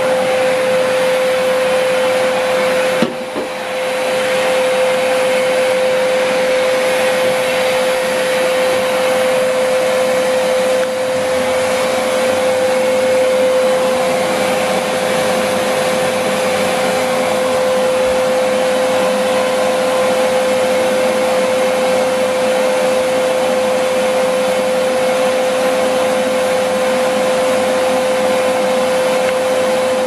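Hoover Whirlwind bagless cylinder vacuum cleaner running steadily: a constant whine over the rush of air through the hose, with a brief dip about three seconds in.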